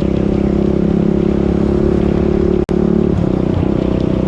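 Honda TRX400EX's single-cylinder four-stroke engine running at a steady pace under way, with a brief break in the sound about two-thirds through.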